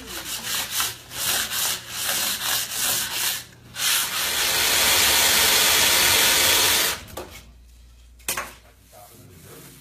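Wood being sanded by hand: sandpaper rubbing in quick back-and-forth strokes, then one steady, louder rubbing hiss lasting about three seconds that stops abruptly. A single sharp knock comes near the end.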